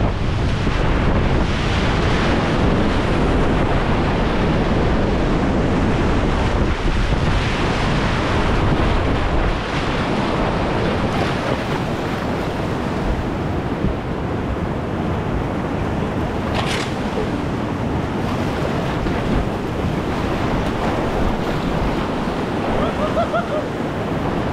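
River whitewater rushing steadily, with wind buffeting the microphone; the rush eases a little about ten seconds in.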